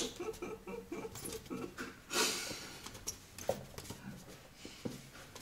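A cat's front paws tapping and scraping against a painted wall as it reaches up at it: scattered soft taps, with a short scrape about two seconds in.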